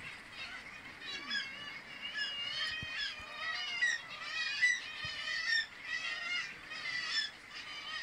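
Seabird colony calling: many harsh, high-pitched bird calls overlapping and repeating several times a second, with a few lower, arching calls in between.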